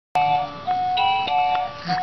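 A baby toy playing a simple electronic melody, one clean note after another, starting abruptly.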